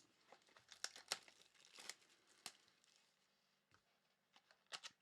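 Faint rustling and scattered light clicks of trading cards and their plastic packaging being handled and shuffled.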